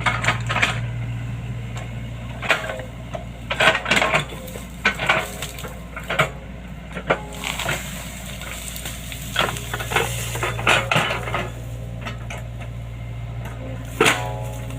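Hydraulic excavator's diesel engine running steadily, with irregular metal clanks and knocks over it, some ringing briefly.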